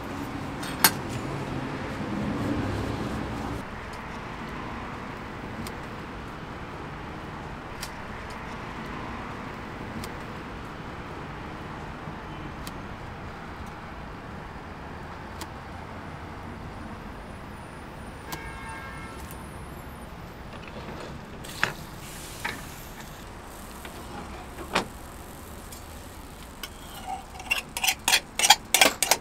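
Street ambience: a vehicle rumbles past in the first few seconds, then a steady background hum with occasional single clicks. Near the end comes a quick run of sharp metallic clinks and taps.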